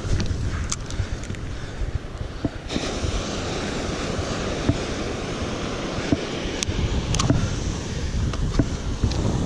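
Wind buffeting the microphone over the wash of breaking surf, with a few scattered sharp clicks.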